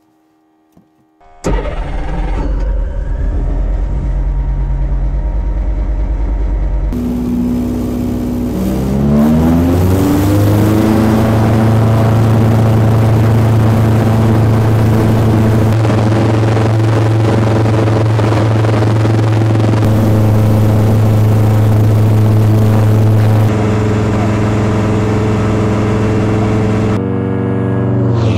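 Pipistrel Taurus motor glider's retractable two-stroke engine and propeller starting with a sudden catch about a second and a half in and running at low power, then opened up about seven seconds in, its pitch rising to a steady high drone at full power for the takeoff run. Near the end the engine sound changes in tone.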